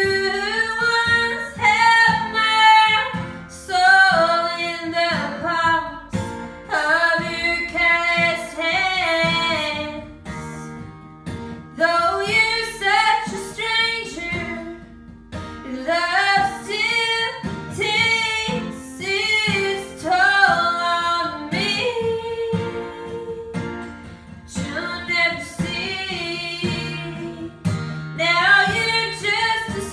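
A woman singing in phrases with short breaks between them, accompanying herself on a strummed acoustic guitar.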